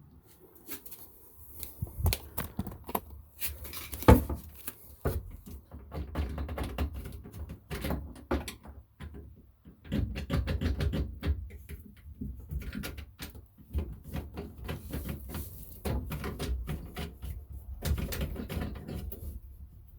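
Hands handling faucet and drain parts under a bathroom sink: irregular clicks, taps and rustling, with one sharp knock about four seconds in.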